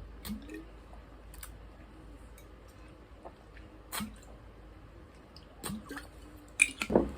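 A few faint, scattered clicks and taps, about five spread over several seconds with a denser cluster near the end, from makeup items and brushes being handled.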